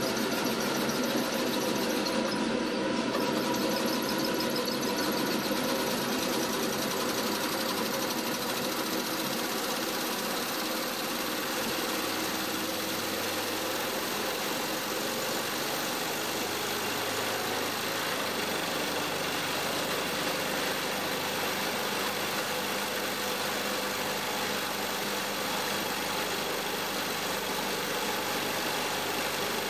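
Four-cylinder axial-piston steam engine running steadily, driving its direct-coupled generator: a continuous mechanical running noise with a steady pitched hum.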